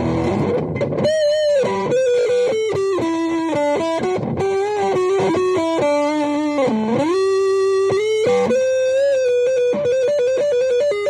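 Epiphone EM-2 Rebel electric guitar played through an amplifier. A held chord dies away, and then a single-note lead line with string bends and vibrato begins about a second in, with a deep bend down and back up around the middle.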